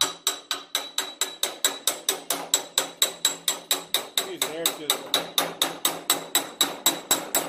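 Hammer rapidly striking a cold chisel against the sheet-steel edge of a VW bus door to break its spot welds: a steady run of sharp, ringing metallic taps, about five a second, that stops suddenly near the end.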